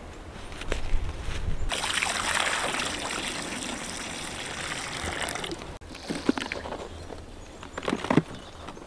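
Water poured in a steady stream into a rubber livestock water pan, splashing for about four seconds, then stopping abruptly. A few short knocks and rustles come near the end.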